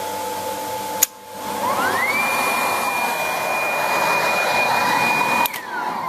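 A contactor clicks and a single-phase fan motor spins up with a rising whine, runs steadily for about three seconds, then another click as the contactor drops out and the whine falls away as the motor winds down.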